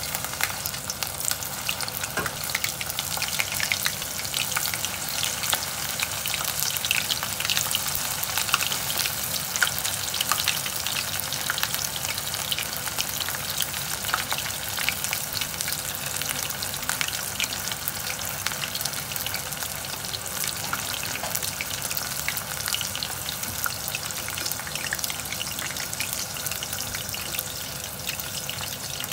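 Battered shrimp deep-frying in a pot of hot oil: a steady, dense crackling sizzle.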